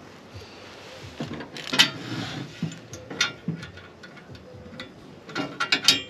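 Small metal air fittings and parts being handled and fitted together: scattered clicks and clinks with some rustling, then a quick flurry of clicks near the end.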